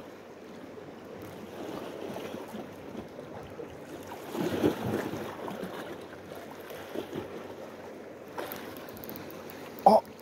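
Sea water lapping and washing against shore rocks, with wind on the microphone; the wash swells about halfway through. A brief loud thump near the end.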